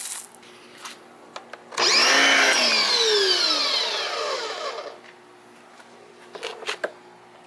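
Corded electric pressure washer's motor and pump whirring up abruptly, then winding down with a steadily falling whine over about three seconds. A few light clicks come before and after it.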